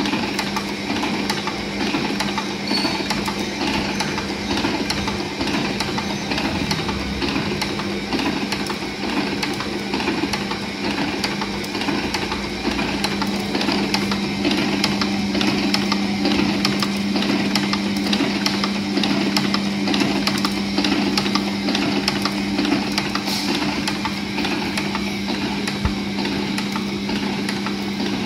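Filigree profile forming machine running: a steady motor hum under rapid, regular mechanical clicking from its forming tools.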